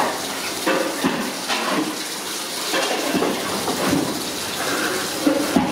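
Water running steadily, with a gushing noise like liquid pouring into a large metal pot.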